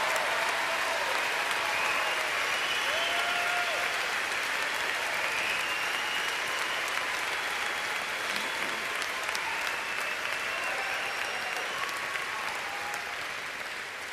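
A large theatre audience applauding steadily for a long stretch, the clapping slowly easing off near the end.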